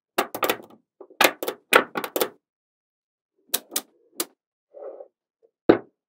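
Small magnetic balls clicking as blocks of them are set down and snapped together on a table. There is a quick run of sharp clicks in the first two seconds, a few more around three and a half to four seconds, and one loud click near the end.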